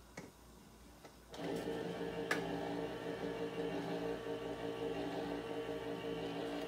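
Electric can opener running on a can of tomato sauce: a steady motor hum that starts about a second in and cuts off suddenly with a click at the end.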